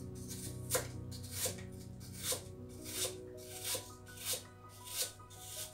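Kitchen knife chopping a peeled apple into small pieces on a cutting board: about eight evenly spaced knocks, a little more than one a second. Background music plays underneath.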